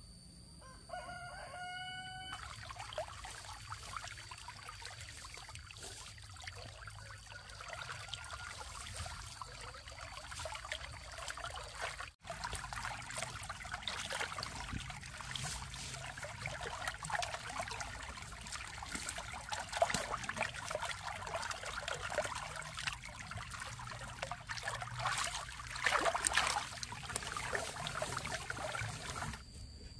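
A rooster crows once, briefly, near the start. A dense crackling, rustling noise then runs on, louder in patches, with a short break about twelve seconds in.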